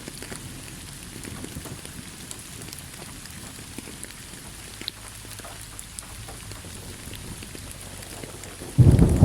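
Steady rain falling, an even hiss with scattered drop ticks. Near the end, a sudden loud clap of thunder breaks in and keeps rumbling.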